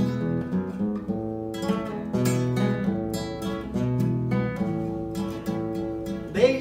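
Acoustic guitar strummed in an instrumental passage between sung verses of a Chilean folk song, the chords changing every second or so. A man's singing voice comes in right at the end.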